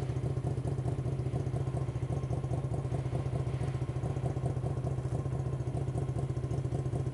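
Hyosung GV250 Aquila's V-twin engine idling steadily.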